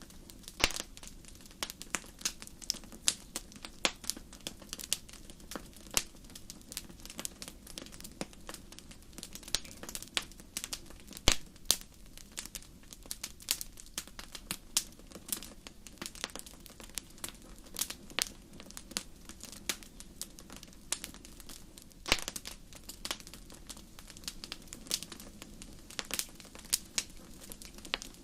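Wood fire crackling: irregular sharp pops and snaps, several a second, over a low steady hiss of burning.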